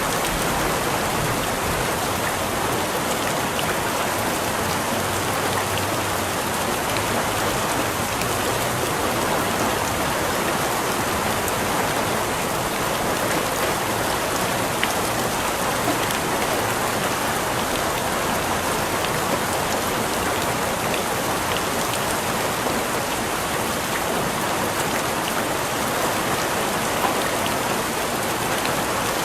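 Steady heavy rain falling on a surface, an even hiss with scattered drop ticks.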